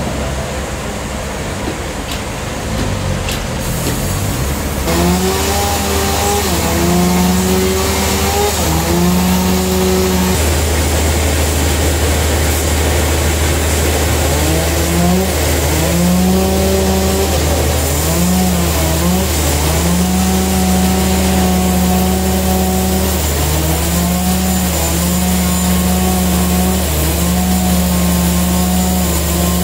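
Band sawmill running as its blade cuts through a large trembesi (rain tree) log. A steady low hum runs throughout, and a louder drive tone joins about five seconds in, its pitch dipping and recovering again and again under the load of the cut.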